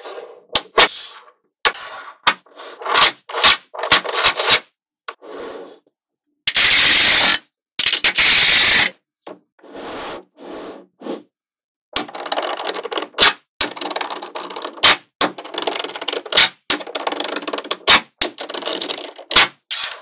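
Small magnetic balls clicking and clattering as they snap together and sheets of them are laid down, in separate bursts with short silences between. About a third of the way through comes a dense rattle in two bursts of about a second each.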